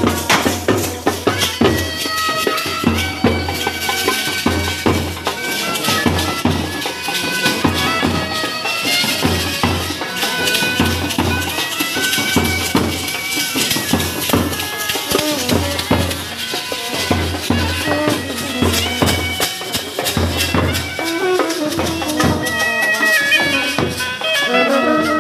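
Indian wedding brass band playing while marching: brass horns carry a stepping melody over a steady beat of large bass drums.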